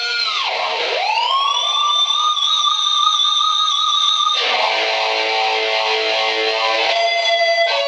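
Distorted electric guitar, a Dean Dimebag Dixie Rebel, played loud. A sustained high note dives sharply in pitch with the whammy bar about a second in and swoops back up to hold. It then drops to lower held notes, changing note again near the end.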